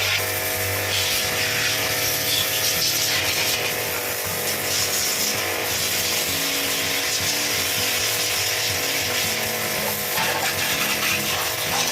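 A motor-driven tool running steadily with an even hiss over it.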